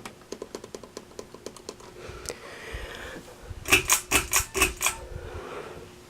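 A rapid run of light clicks from a ceiling fan's wall speed control being clicked through its settings, then a cluster of about six louder clicks a little past halfway. A faint steady hum sits underneath.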